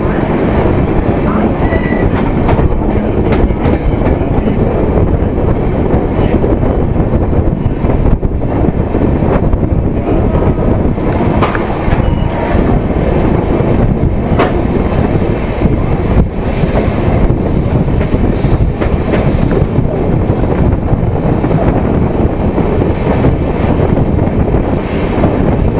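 South Bihar Express passenger train running along the track: a steady, loud rumble of wheels on rails, with occasional clicks.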